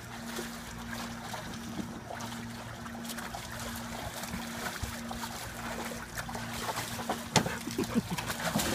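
Water splashing and sloshing as dogs wade and paw at the water in a plastic kiddie pool, with a steady low hum underneath. The splashing grows louder and choppier near the end.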